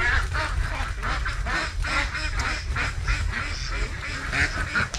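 Poultry calling: many short, overlapping calls in quick succession.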